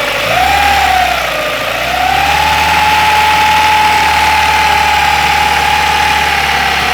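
2001 Ford Ikon engine running with a high whine that rises and falls as the engine is blipped for about two seconds, then climbs and holds steady at a higher pitch while the revs are held. The whine is an unusual noise that has appeared since engine work and that a new timing chain has not cured.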